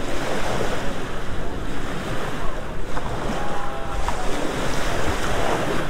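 Small gulf waves washing and lapping in shallow water around concrete pier pilings, with a louder wash as a wave breaks close by in the second half. Wind buffets the microphone throughout.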